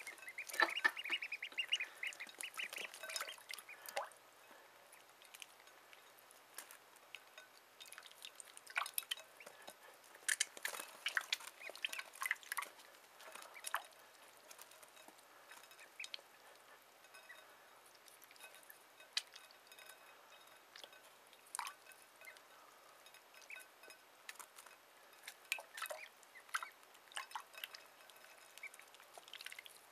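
Ducklings peeping, louder and denser in the first few seconds and then in scattered bursts, with small splashes and drips as they dabble in a shallow dish of water.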